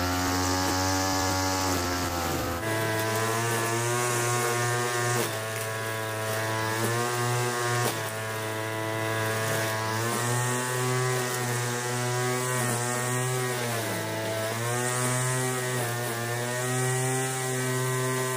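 Small TU26 two-stroke engine, taken from a sprayer, running on a homemade remote-control lawn mower; its pitch steps up about three seconds in and then sags briefly a few times before picking up again.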